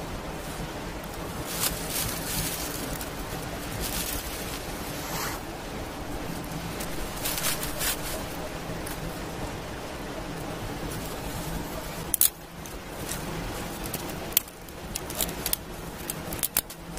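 Dry twigs snapping and rustling as they are handled and stacked over a small kindling fire, with scattered sharp snaps that come more often near the end, over a steady hiss.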